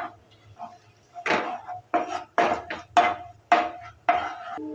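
Spatula stirring and scraping in a kadai with oil and chili powder: a run of quick strokes, roughly two a second, each with a brief ring, starting about a second in.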